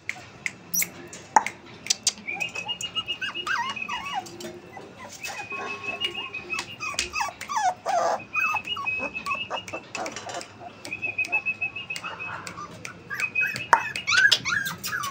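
Puppy whining and yipping in many short, high-pitched calls, some falling in pitch, with sharp clicks in between.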